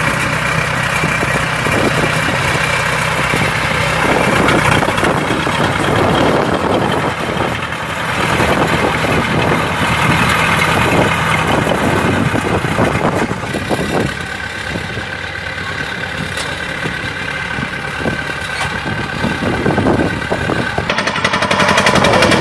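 Rice combine harvester's diesel engine running steadily, a continuous loud mechanical drone.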